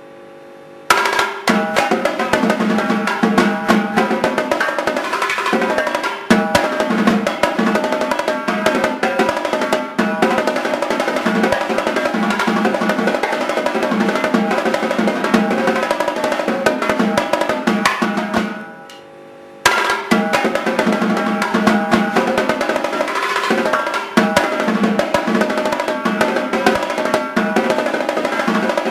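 Yamaha marching tenor drums, a five-drum set of quints, played solo with sticks in fast, dense runs across the drums. Playing breaks off briefly about two-thirds of the way through, leaving the drums ringing, then resumes.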